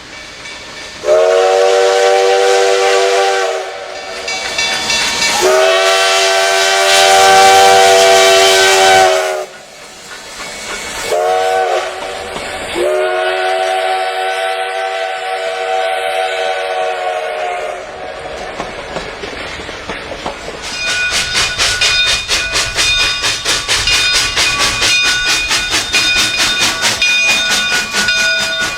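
A train horn sounds four multi-note blasts, long, long, short, long: the standard warning signal for a level crossing. After that the train passes with a fast, steady clatter.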